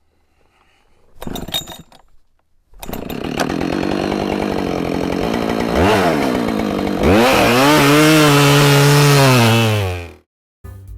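Husqvarna 572XP two-stroke chainsaw starting about three seconds in and running, then revved to full throttle, its pitch sagging slightly and recovering under load. It cuts off abruptly near the end. A short rasping burst comes about a second before it starts.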